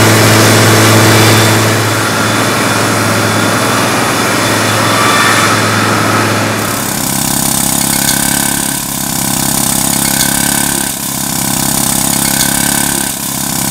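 Walk-behind road saw's engine running under load as its wet diamond blade cuts a slot in asphalt, a steady drone with a harsh grinding hiss. About seven seconds in the sound changes abruptly to a different engine-driven machine running steadily, with a higher tone coming back every second or two.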